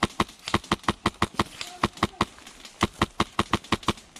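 Airsoft rifle firing a rapid string of single shots, about five a second, with a short pause a little past two seconds in before a second string.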